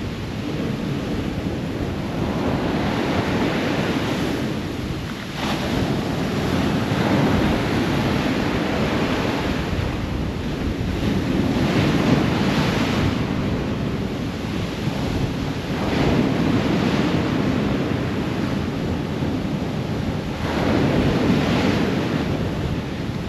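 Ocean surf: waves breaking and washing up the shore in a continuous rush, swelling as a new wave comes in every few seconds.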